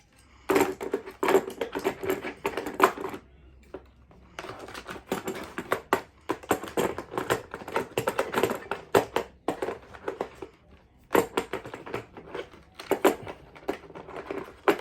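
Rapid ratcheting clicks from a cordless combi drill being worked by hand, in three bursts of a few seconds each.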